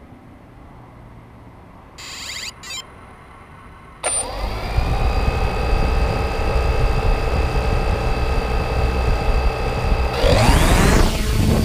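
3DR drone's electric motors and propellers spinning up with a sudden start and settling into a steady multi-tone whine. About 10 s in they rise sharply in pitch as the drone throttles up to take off.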